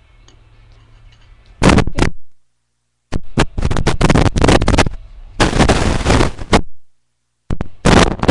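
Loud burps, so loud that they overload the webcam microphone into harsh distortion: a short one about a second and a half in, then two longer ones from about three to five seconds and around six seconds, and another starting near the end.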